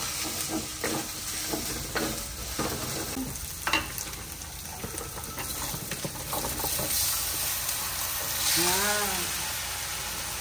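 Python meat and spices frying in hot oil with a steady sizzle, stirred in the pan, with scattered scrapes and knocks of the utensil against it.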